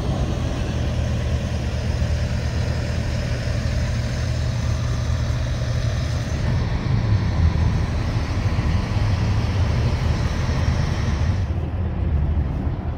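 Steady low rumble of idling car and truck engines with background traffic noise.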